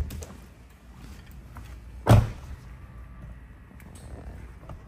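A car door on a 2017 BMW 740i shutting with a single solid thump about two seconds in. Light clicks and knocks from handling the car's interior come before and after it.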